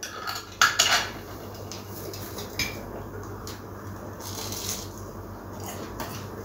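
A few sharp knocks and clinks of a bottle and plate on a tabletop in the first second, another light knock a little later, then soft crunching of crisp breadcrumb-fried bread being bitten and chewed.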